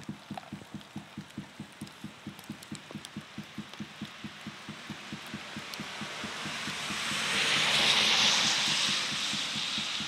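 Tyre hiss of a vehicle passing on a wet road, swelling to its loudest about eight seconds in and then fading. It runs over a fast, even low pulsing.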